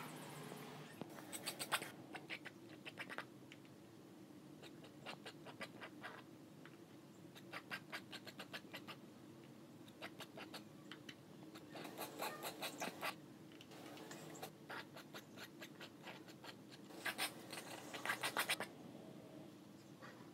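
Palette knife scraping paint onto canvas in short runs of rapid strokes, with pauses between runs.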